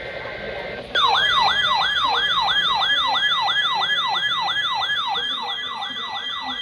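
The end of an EAS digital data header, a short buzz of two alternating tones. Just before a second in, a weather radio's alert alarm sounds a loud siren-like warble of rapid falling sweeps, about three a second, over a steady tone. The alarm is set off by a marine warning alert.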